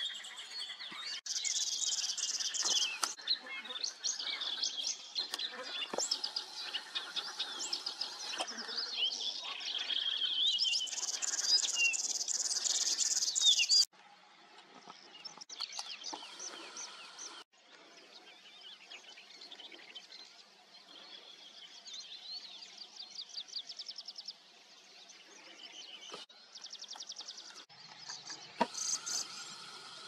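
Several songbirds singing a mix of fast, varied, high chirping songs. The song is loud and dense for the first half, then drops suddenly and goes on fainter.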